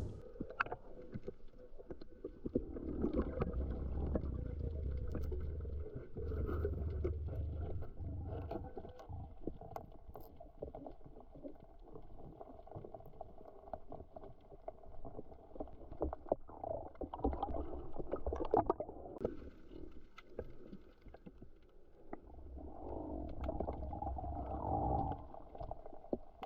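Muffled underwater sound picked up by a GoPro in its waterproof housing: a low rumbling swirl of water that swells and fades, with scattered clicks and crackles.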